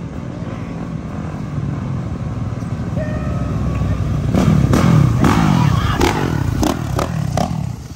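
Several Honda CRF four-stroke dirt bikes running, getting louder as they ride up close about four seconds in, their engines revving up and down. Sharp throttle blips follow near the end.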